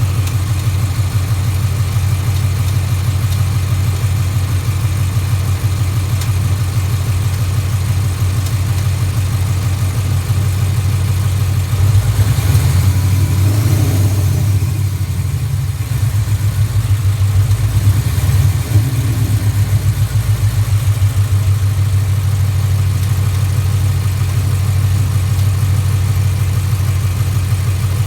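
Ford Coyote 5.0 V8 with long-tube headers idling steadily, with a pronounced tick. The owner cannot tell whether it is rod knock or a tick; gold, brass-coloured metal flakes turn up at every oil change.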